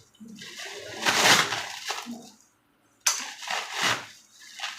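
Packaging around an engine cylinder block being handled and opened: irregular crinkling and rustling in several bursts, broken by a brief silence about two and a half seconds in that ends abruptly.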